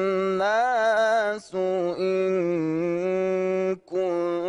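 A man's voice reciting the Quran in the melodic, drawn-out mujawwad style, holding long notes with wavering ornaments. It breaks briefly twice, about a second and a half in and near the end.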